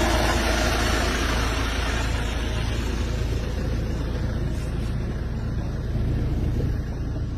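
A motor vehicle's engine running steadily, with a constant low rumble and noisy street sound around it.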